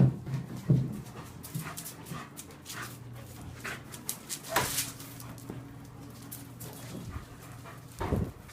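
Dogs panting and moving about, with scattered short scuffs and clicks, and a louder run of sounds starting near the end.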